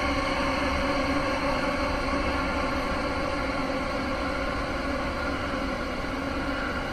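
Eerie horror-soundtrack drone: a steady layer of held tones that eases slightly in loudness.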